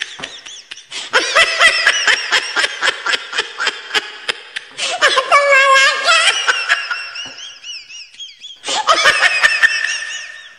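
High-pitched laughter in quick, breathy bursts, with a short pause about three quarters of the way through before the laughing starts up again.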